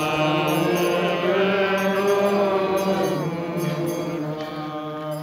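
Several voices singing a slow, chant-like church hymn on long held notes, fading near the end.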